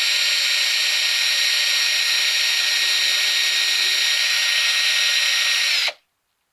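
Small battery drill running at a steady speed, spinning a pipe cleaner to clean out a tobacco pipe's shank. It cuts off suddenly about six seconds in.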